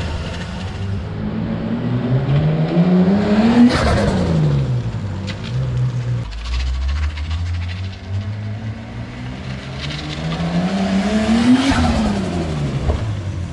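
Turbocharged Nissan S14 engine revving up twice. Each time the pitch climbs for about two seconds, then drops off quickly.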